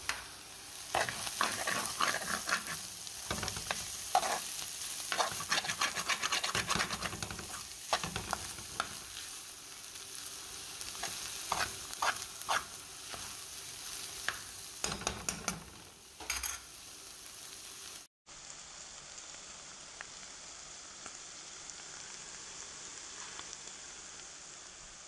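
Onion and fish fry sizzling in a frying pan while a spoon stirs and scrapes through it, with repeated clicks of the spoon against the pan. About two-thirds of the way in the stirring stops and only a steady sizzle remains.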